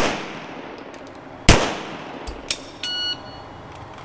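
A pistol shot about a second and a half in, echoing in an indoor range, following the ringing tail of the shot fired just before it. A small click and a short electronic beep come about a second later.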